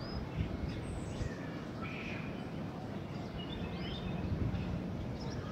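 Wind rumbling on the microphone, with several short bird chirps scattered over it.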